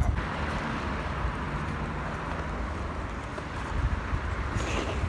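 Steady rumbling background noise with an even hiss above it and no distinct events; a brief, brighter sound comes near the end.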